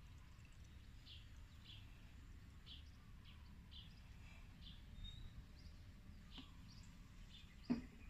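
Faint bird chirps, short and high, repeating about once a second over a low steady background hum, with a single sharp knock near the end.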